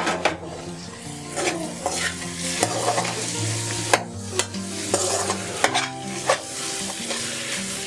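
Steel ladle scraping and knocking against a metal kadai while stirring frying onions, peas and boiled potato cubes, with the oil sizzling throughout. The scrapes come about once or twice a second.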